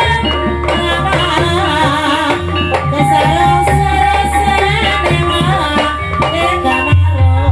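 Ebeg (Banyumas kuda lumping) accompaniment music: hand drums beating a steady rhythm under gamelan-style melodic instruments, with a deep sustained bass note and a held, wavering melody line.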